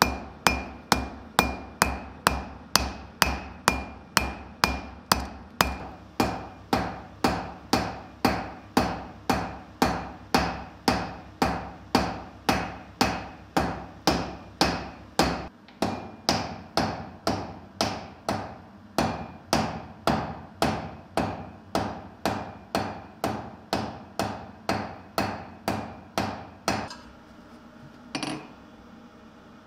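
A blacksmith's hand hammer strikes red-hot steel on an anvil in steady blows, about two a second, with a ringing tone under them through the first half. The hammering stops near the end.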